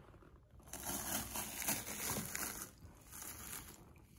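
Metal scraper blade scraping dried foam and adhesive residue off the inside of a plastic hardtop roof panel, a dry rasping noise in long strokes.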